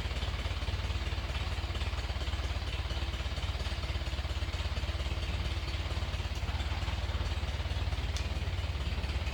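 An engine running steadily, with a fast, even low chugging from its firing strokes and no change in speed.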